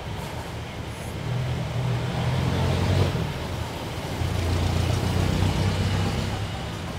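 Street traffic: motor vehicles passing close by, their low engine rumble swelling twice over a steady background of road noise.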